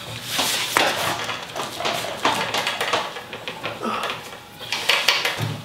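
Home cable gym rattling and clanking irregularly as its cables and handles are yanked about, with a person's grunts of effort.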